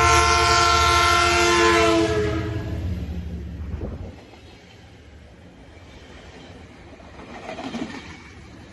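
A train horn sounding a loud multi-note chord for about two seconds over the rumble of a passing train. Both fade, and the rumble drops away about four seconds in, leaving faint background noise.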